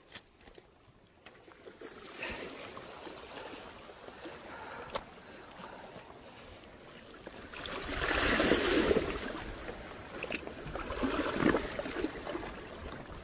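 Shallow sea water sloshing and splashing over weedy rocks as hands hold a wrasse in the water to release it, surging louder about eight seconds in and again about eleven seconds in.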